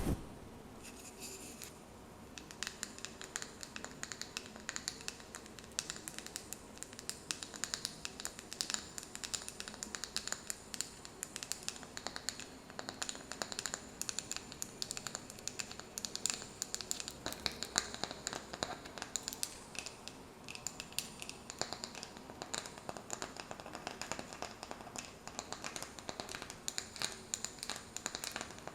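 Fast tapping and tracing on a wooden lid: a dense, continuous run of small crisp clicks and scratches.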